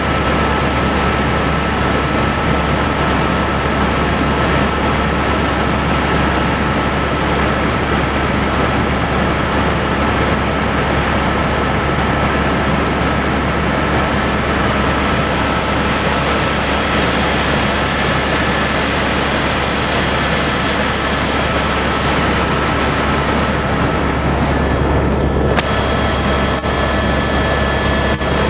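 Helicopter in flight: a loud, steady engine-and-rotor drone with a thin constant whine over it. Near the end the sound turns suddenly brighter and hissier.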